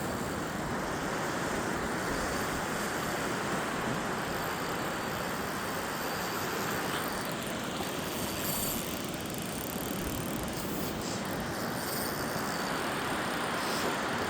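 Steady rushing of flowing creek water, an even noise without pitch or distinct events.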